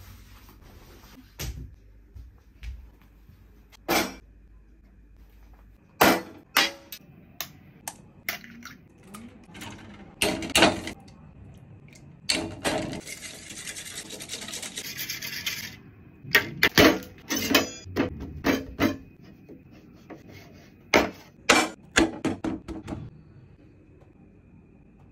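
Kitchen food-prep sounds: a scattered series of sharp clinks and knocks from utensils against a steel bowl and a wooden board, with a few seconds of steady rushing noise about halfway through.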